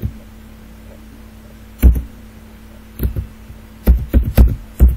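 Keystrokes on a computer keyboard, picked up close to the microphone as sharp thudding taps: a single tap about two seconds in, then a quick run of taps near the end, as a username is typed. A faint steady hum runs underneath.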